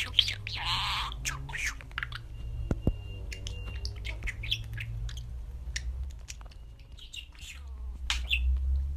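Budgerigars chirping and squawking, with a louder squawk about a second in, then a run of short, quick chirps and clicks.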